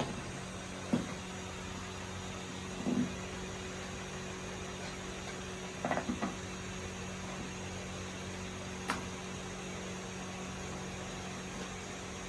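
Steady low hum, with a few short knocks or clicks about one, three, six and nine seconds in.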